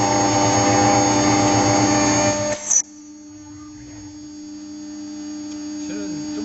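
CNC milling spindle with an end mill cutting aluminium plate: a loud, steady grinding cut over a constant whine. About two and a half seconds in it breaks off abruptly after a brief burst, leaving a much quieter steady hum.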